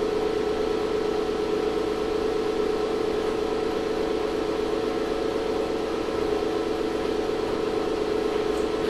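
A 2500-watt ZVS induction heater rig running under load, drawing about 12 amps while heating a coffee-can lid on a pancake work coil. It gives a steady electrical hum with one strong mid-pitched tone and fainter overtones.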